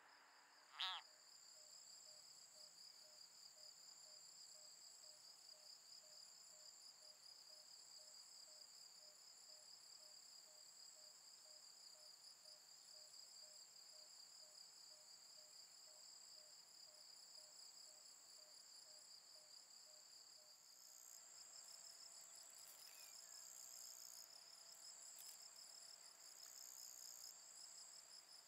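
Faint, steady high-pitched trilling of meadow insects, with a second high trill coming and going in the last third. About a second in there is one short call that slides downward in pitch.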